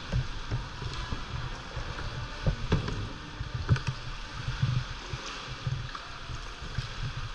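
Sea water lapping and sloshing around a kayak inside a rock sea cave, with irregular low thuds and a few sharp splashes or knocks.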